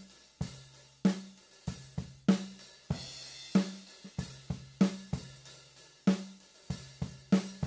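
Recorded drum kit playing back a steady beat at about 95 beats a minute, with sharp hits about three times a second, hi-hat and cymbals, and a ringing snare on the backbeat about every second and a quarter. It is heard mainly through the stereo overhead microphones, with the close kick and snare tracks being muted.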